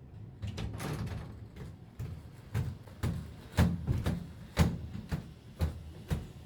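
Humanoid robot at a door: a series of thuds and clacks about once a second, louder from about three and a half seconds in.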